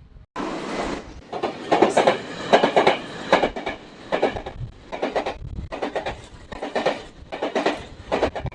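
A train rolling past, its wheels clattering in an uneven run of knocks over the rail joints.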